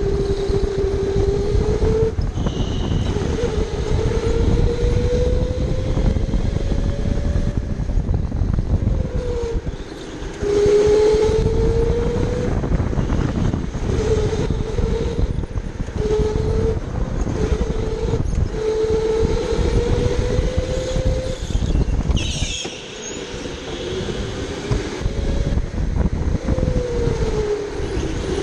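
Electric go-kart motor whining from on board the kart, its pitch climbing with speed and dropping each time the driver lifts for a corner, over a steady low rumble of the kart rolling on the concrete. A brief high squeal a little over two-thirds of the way through.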